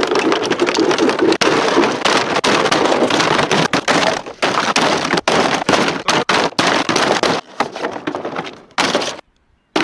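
The hard plastic body of a Power Wheels ride-on toy being smashed and thrown about on asphalt: a rough, continuous run of cracks, knocks and scraping. The impacts thin out after about seven seconds and stop abruptly about nine seconds in.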